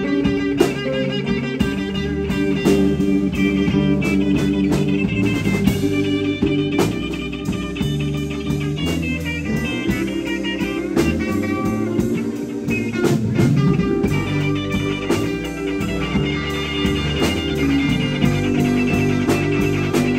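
Live blues band playing an instrumental passage: electric guitar over bass guitar and a drum kit, with no vocals.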